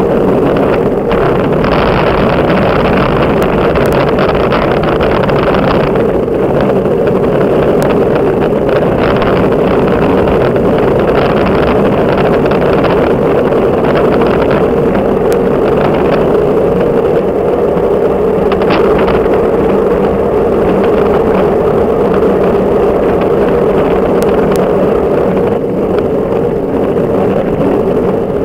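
Steady rush of wind and tyre noise on a camera mounted to a road bicycle riding along an asphalt road at speed, with wind buffeting the microphone.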